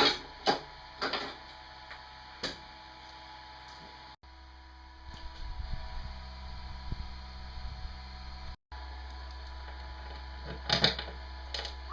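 Scattered light knocks and clatter of hands handling parts and wiring, over a steady low rumble, with the sound cutting off abruptly twice.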